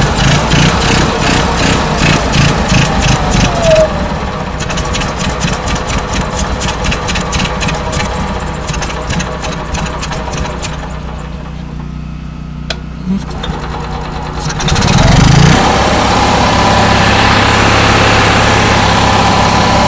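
Generator engine running roughly with a rapid, regular ticking, fading down about eleven seconds in, then catching again with a sudden loud surge near fifteen seconds and running steadily. It struggles to keep running, which the owner puts down to the fuel pump not holding fuel pressure.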